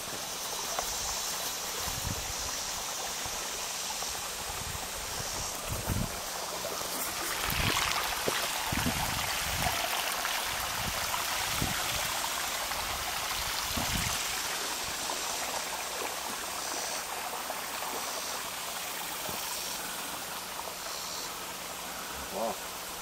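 Running water splashing steadily over a small rock waterfall into a backyard pond, a little louder for several seconds in the middle.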